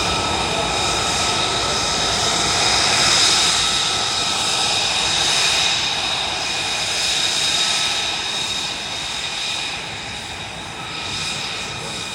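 Aircraft flying over: a steady engine rush with a high whine, loudest about three seconds in and fading away toward the end.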